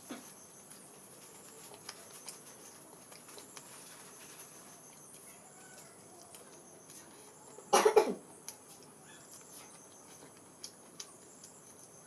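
Quiet eating sounds: faint chewing and small mouth clicks over a low hiss. About eight seconds in comes one short, loud cough.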